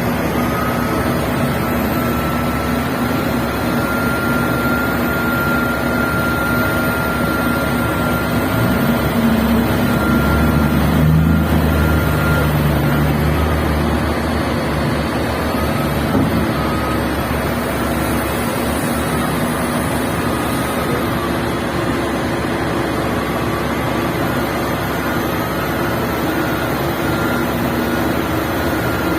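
Diesel engines of a large mining excavator and a haul truck running steadily under work, swelling louder for a few seconds about nine seconds in, with a thin high whine running over them.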